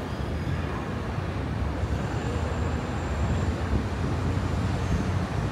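Steady low rumble of outdoor urban background noise, with no distinct events.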